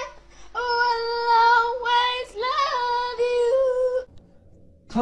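High-pitched singing voice holding long, steady notes in several short phrases, stopping about four seconds in.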